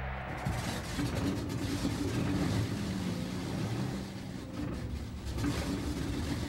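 Busy city street ambience at night: a steady wash of traffic noise.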